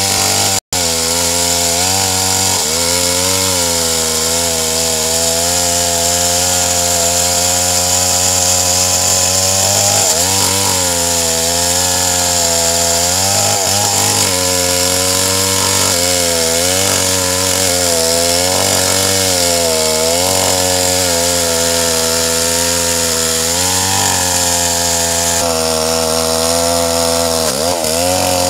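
Stihl 381 two-stroke chainsaw running at high revs while ripping lengthwise through a big red meranti log; the engine pitch sags and recovers several times as the chain loads up in the cut. The sound breaks off for a moment about half a second in.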